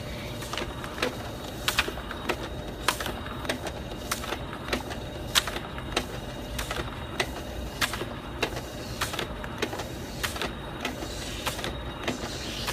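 Kodak i1220 Plus document scanner feeding and scanning a stack of paper answer sheets: a steady high whine from its feed mechanism, with a sharp click about every half second.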